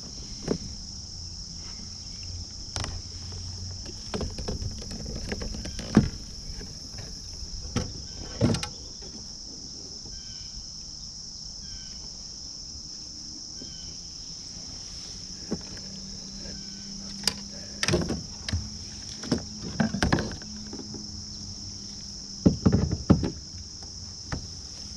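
Irregular knocks and bumps of a kayak and its paddle and gear, with a cluster of sharper knocks near the end, over a steady high-pitched drone of late-summer insects.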